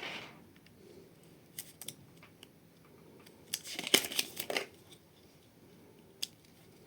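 Handling of a plastic USB-C charger and cable: a few light clicks, then a second-long burst of crinkling plastic about three and a half seconds in.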